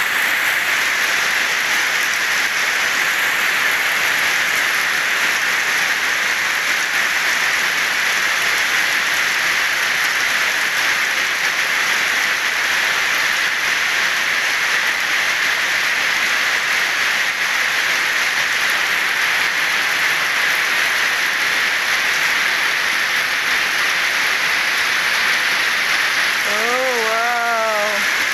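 Heavy rain falling steadily onto the surface of a lake, an even hiss of drops hitting the water.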